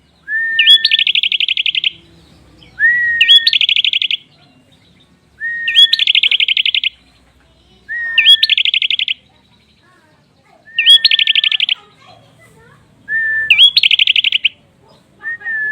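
A prenjak (prinia) singing its song over and over, a phrase about every two and a half seconds. Each phrase is a short clear whistled note followed by a fast, buzzy trill lasting about a second, higher in pitch than the whistle.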